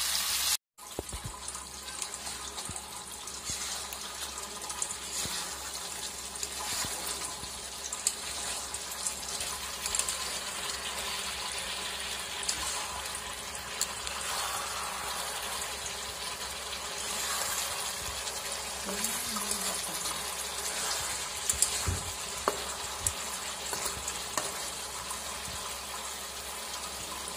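Chicken and potato curry sizzling and bubbling in a kadai, with the meat's own juices in the masala, as it is stirred with a spatula: a steady hiss with small pops and scrapes.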